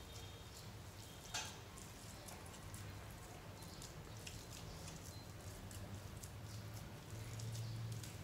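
Hands kneading and squishing slime mixed with orange paint: faint scattered wet clicks and crackles, with one louder pop about a second and a half in.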